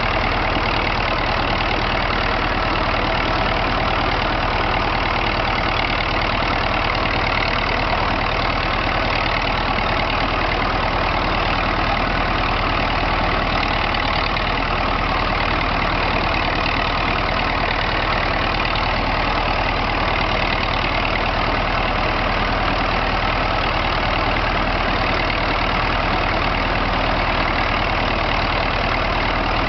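Fiat 55 L crawler tractor's engine running steadily while the tractor ploughs.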